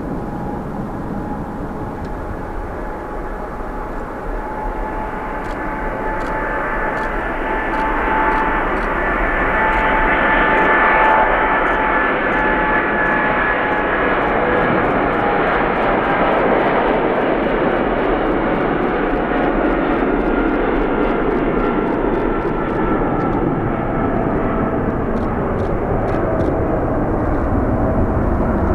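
Jet engines of a large fixed-wing aircraft: a roar that builds over the first ten seconds or so and then holds steady, with whining tones sliding slowly lower through it.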